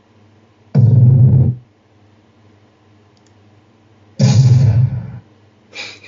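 Two short, bass-heavy sound effects played through a stereo speaker from a Discord call, each starting abruptly and cut off after about a second, with a third beginning near the end. They sound distorted and boomy from the call and the speaker.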